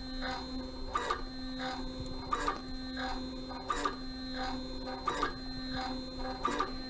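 Grundfos SMART Digital DDA diaphragm dosing pump running: a steady stepper-motor whine with a click about every second and a half as each stroke cycles, and lighter ticks in between. Air has been let into its suction line to simulate an off-gassing chemical.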